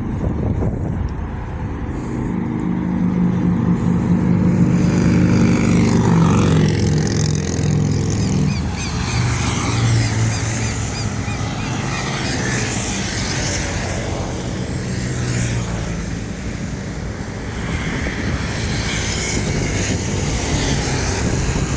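Road traffic: cars and motorcycles driving past, with tyre and engine noise rising and falling. One vehicle's engine hum is loudest from about two to eight seconds in, and another passes a little later.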